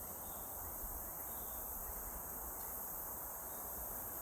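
Steady, high-pitched chorus of insects such as crickets, with a few faint short chirps.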